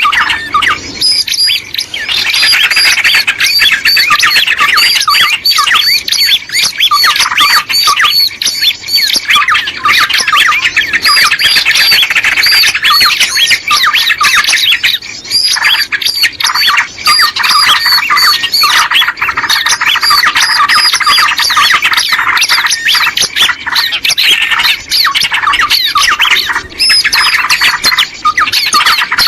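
Small birds chattering and chirping without a break, many quick, high notes repeating over one another: a bird-lure recording of the kind played to draw small birds in.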